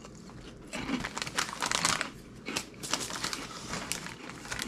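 A plastic Bugles snack bag crinkling and crackling as it is handled and a hand reaches in for chips, starting about a second in.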